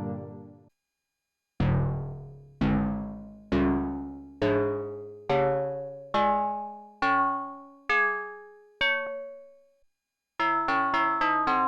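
MFB-301 Pro synthesizer playing a rising series of nine single notes, roughly one a second, each struck and dying away. After a held sound fades out at the start, there is a short gap near the end, and then a fast repeating note pattern starts up.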